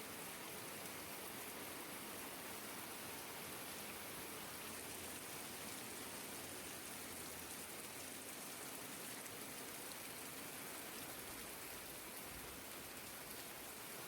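Rain falling steadily, a faint, even hiss without distinct drops or pauses.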